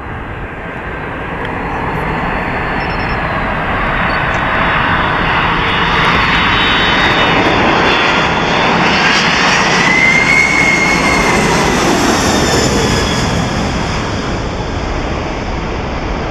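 Boeing 747-400 on final approach, its four Pratt & Whitney PW4056 turbofans giving a jet roar that swells as it comes close and peaks about ten seconds in, then eases a little as it passes. A fan whine bends up and then down as it goes by.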